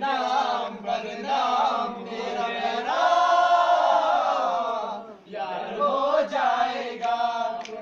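A group of young men singing together without instruments, ending on a long held note about three seconds in, the loudest part, before carrying on after a short pause.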